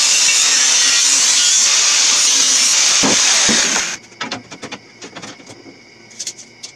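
Angle grinder with a cut-off wheel cutting through steel angle iron: a loud, steady grinding that stops just before four seconds in. After it, a few light clicks and taps.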